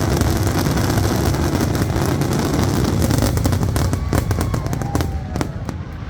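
Fireworks finale barrage: a dense, continuous rumble of shell bursts and crackle, thinning to a few separate bangs in the last couple of seconds.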